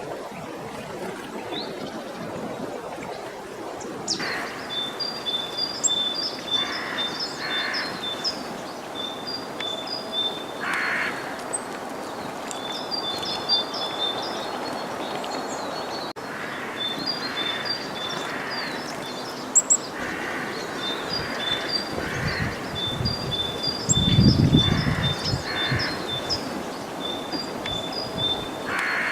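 Small forest songbirds calling with rapid high chirps and held high notes, with harsh crow caws every few seconds. A low rumble, the loudest sound here, comes about three-quarters of the way through.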